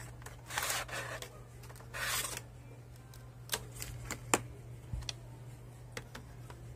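Packaging and box contents being handled during an unboxing: two short rustles near the start, then several sharp clicks and taps, over a steady low hum.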